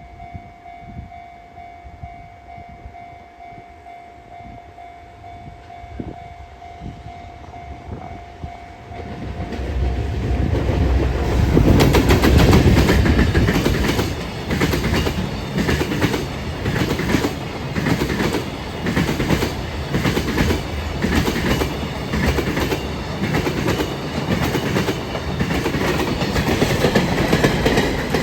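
A level-crossing warning rings steadily. About ten seconds in, a freight train arrives loudly, and its wheels pass over the rail joints with a regular clickety-clack, the knocks coming in groups about once a second.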